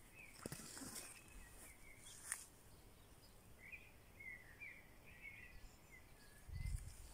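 Faint birds chirping in short, scattered calls, with a couple of sharp clicks early on and a brief low rumble near the end.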